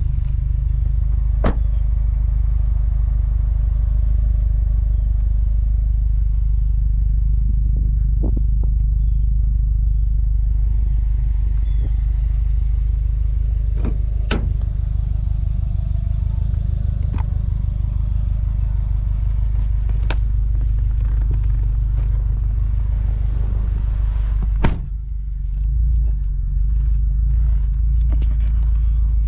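2013 Subaru WRX's 2.5-litre turbocharged flat-four idling steadily, with a few sharp clicks and a thump late on, after which the idle dips briefly.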